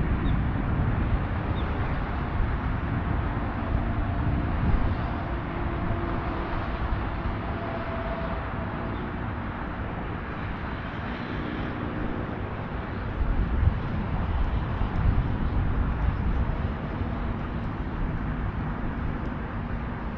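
Outdoor ambience of vehicle traffic: a steady low rumble with faint engine hum that comes and goes.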